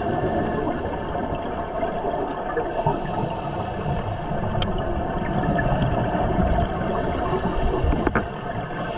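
Scuba regulator breathing heard underwater: bubbling and gurgling of exhaled air over a steady rumble, with louder bursts of bubbles near the start and again about seven seconds in.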